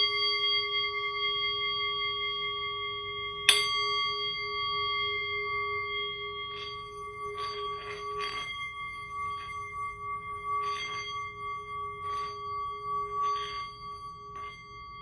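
A struck metal bell, rung again about three and a half seconds in, ringing with several long-held tones that slowly fade; the lowest tone dies away a few seconds before the higher ones. Faint soft rustles come and go in the second half.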